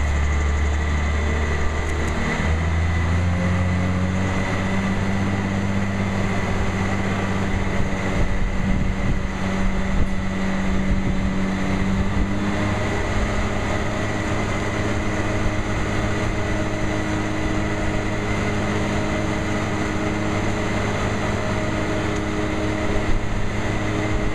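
Crane's diesel engine running under load during a heavy lift. Its pitch steps up about two seconds in and shifts again about halfway through, with a thin steady high tone above it.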